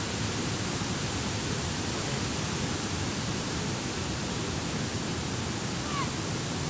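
Steady rushing of water pouring through a dam spillway, an even wash of noise with no let-up. A faint short falling chirp sounds near the end.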